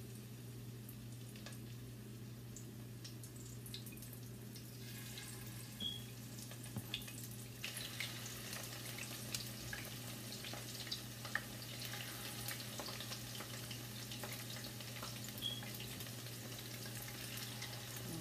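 Battered shrimp frying in shallow oil in a skillet: a faint sizzle with scattered pops and crackles that grow busier about halfway through. A steady low hum runs underneath.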